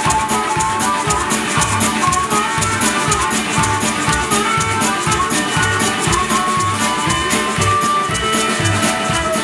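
Live skiffle band playing an instrumental passage: a stepping melody line over a steady, thumping low beat and fast, even high-pitched rattling percussion.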